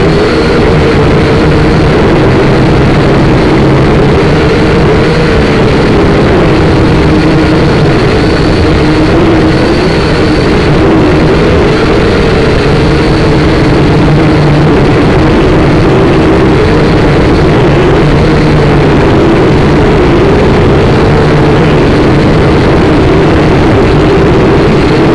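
SYMA toy quadcopter's small electric motors and propellers whining loudly, heard close up through the drone's own onboard camera, the pitch wavering up and down as the throttle changes.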